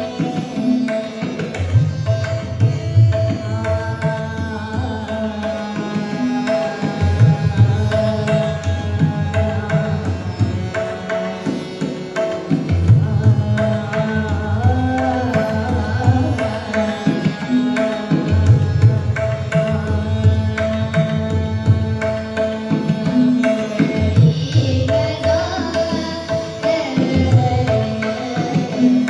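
Hindustani classical vocal performance: a girl's voice singing over steady tabla strokes, with harmonium and tanpura drone.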